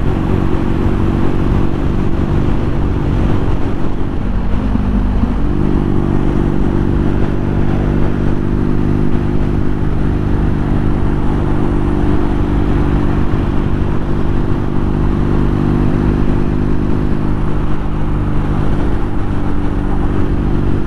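BMW R nineT's 1200cc boxer-twin engine running steadily at motorway cruising speed, heard from on the bike with a steady rush of wind and road noise over it. The engine note dips briefly about four seconds in, then settles back to a steady pitch.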